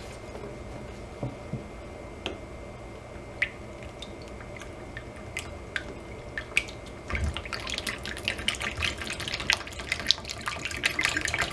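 Grapeseed oil poured from a plastic bottle into a plastic tub: a few scattered drips and ticks at first, then, from about seven seconds in, a dense run of glugging and splashing as the pour gets going, with a low thump as it starts.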